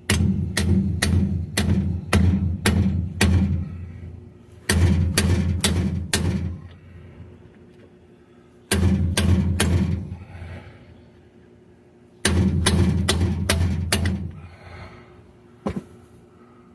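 Hammer blows driving a seal into the rear axle housing of a 2002 GMC Sierra, with a ringing thunk on each hit. The blows come in runs of several, about three a second, with pauses between the runs and a single blow near the end.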